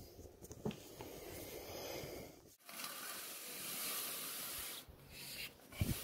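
Stiff chimney-brush bristles scraping along the inside of the flue as the brush is pushed up, a steady rasping noise after a break about two and a half seconds in. The first seconds hold low rustling handling noise, and a few knocks come near the end.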